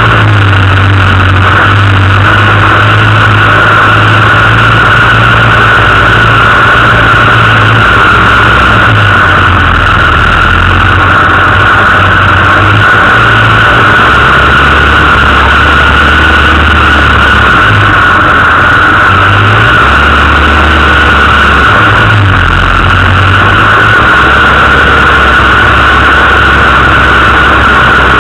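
An off-road 4x4's engine runs under changing throttle, its low note shifting up and down in steps and holding for a few seconds at a time. The recording is so loud that it is close to distorting, with a steady hiss-like band over the engine.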